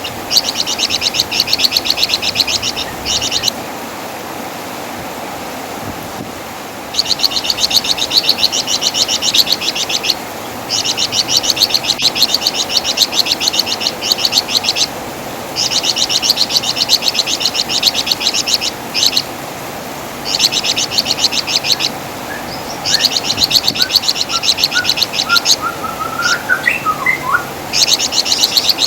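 Flamboyan (wergan Jawa) songbird giving its rapid, high-pitched chattering call in repeated phrases of two to four seconds, with short pauses between, over a steady hiss. Past the middle, a few thin, lower whistled notes come in briefly.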